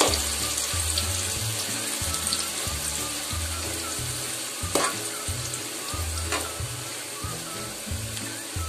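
Onions frying in hot oil in a kadai: a steady, dense sizzle while they cook toward light brown. There are two sharp clicks, about five and six and a half seconds in.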